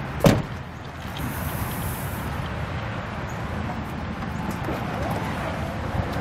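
An SUV's rear side door slamming shut once, a sharp loud thud about a third of a second in, followed by steady outdoor background noise.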